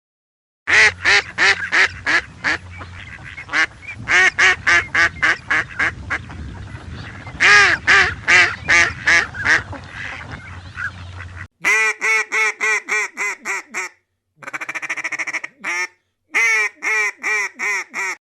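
Ducks quacking in quick runs of short calls. About eleven seconds in, the recording cuts to a second, cleaner one, where the quacks come in fast series separated by short pauses.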